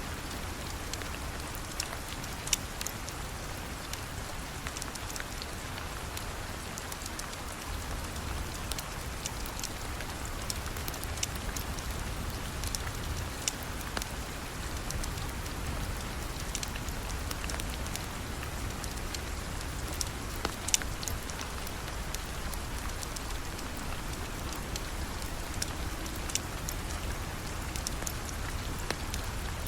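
Steady rain falling, with scattered sharp clicks and pops throughout, two of them louder than the rest.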